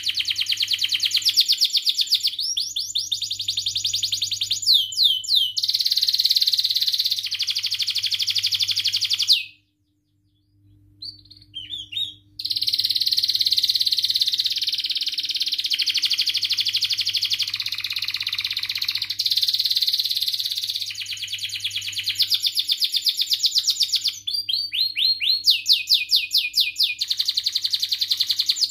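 Domestic canary singing a long, fast song of rapid trills and quick rising and falling chirps, with a short break about ten seconds in before it starts up again.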